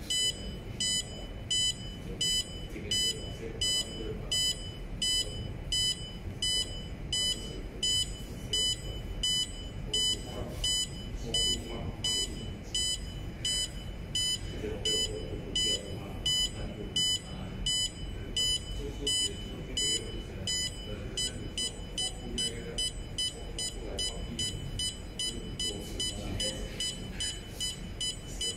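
Piezo buzzer of an Arduino ultrasonic reversing sensor giving a train of short, high-pitched, evenly spaced beeps. The beeps come quicker in the later seconds, signalling that the object has come within about 20 cm of the sensor.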